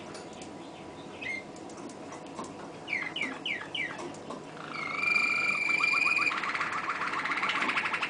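Malinois (Waterslager) song canary singing: a few scattered notes and a quick run of falling sweeps, then a long held whistle-like note that breaks about six seconds in into a fast rolling trill.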